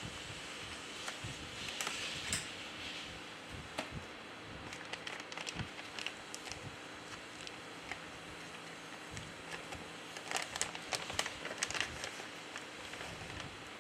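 Faint scattered clicks and crinkling of small phone parts and adhesive being handled, with a cluster of quick clicks near the end.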